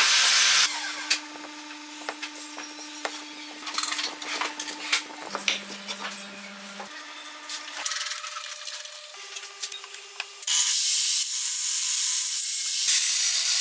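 Wooden blocks of a half-lap joint knocking, clicking and rubbing together as they are handled and slid apart, then, about ten seconds in, a table saw cutting through the wood, loud and hissing for a couple of seconds. A short burst of loud cutting noise also opens the clip.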